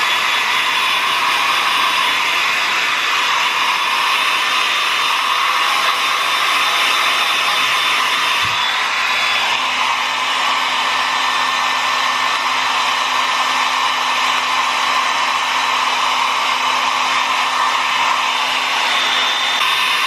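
Handheld Conair hair dryer running steadily, blowing air through a dog's coat.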